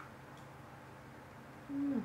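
Low room tone, then near the end a woman's short closed-mouth "mm" hum that falls in pitch, made with a mouthful of food.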